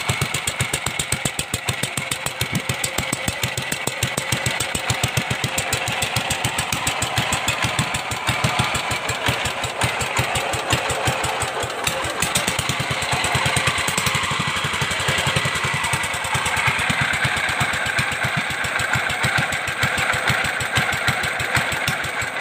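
Restored 16 hp Briggs & Stratton I/C engine running steadily, with an even, rapid exhaust beat.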